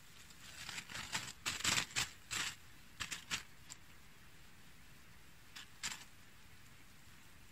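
Irregular rustling and clicking handling noise: a quick cluster of crackles over about three seconds, then two more a couple of seconds later.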